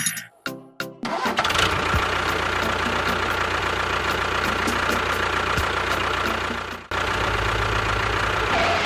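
An engine running steadily. It cuts out abruptly about seven seconds in and starts straight up again.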